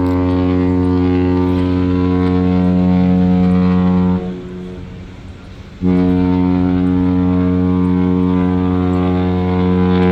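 Cruise ship horn sounding two long, low, steady blasts, the second starting about six seconds in after a short pause.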